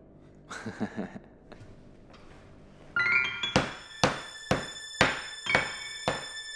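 A wooden rolling pin pounding a cloth-wrapped bundle on a wooden board, in even blows about twice a second. The blows start about three and a half seconds in, over music with bell-like notes that comes in just before them.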